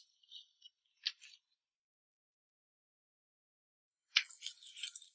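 Close-miked eating of crispy batter-fried pork (guobaorou). A few small crisp clicks come in the first second and a half, then a gap of silence, then loud crackly crunching as the crisp coating is bitten and chewed from about four seconds in.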